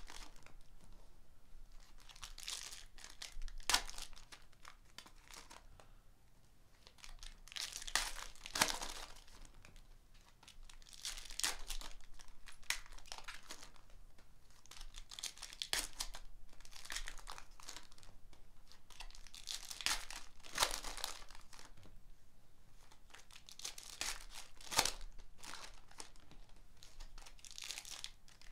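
Foil wrappers of Panini Contenders football card packs crinkling and tearing as packs are ripped open one after another, in repeated bursts every few seconds with a few sharp clicks.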